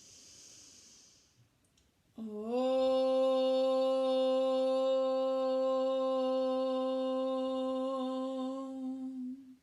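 A woman breathes in audibly through her nose, then chants a single long, steady Om on one held pitch for about seven seconds, a yoga chant sounded to set up a vibration in the chest. It stops suddenly near the end.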